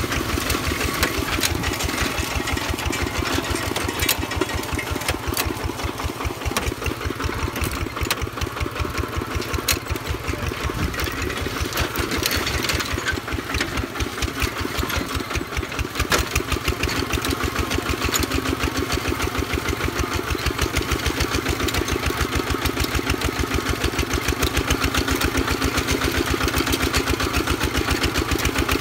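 Single-cylinder diesel engine of a two-wheel walking tractor running steadily under load as it pulls a disc plough, a fast even run of firing pulses. It grows a little louder about two-thirds of the way through.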